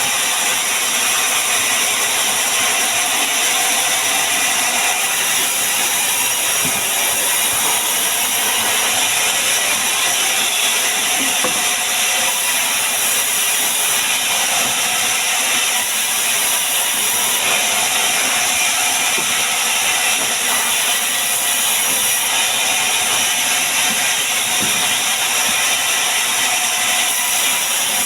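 A woodworking power tool running steadily while working acacia or waru timber, a continuous bright, hissy noise with no pauses.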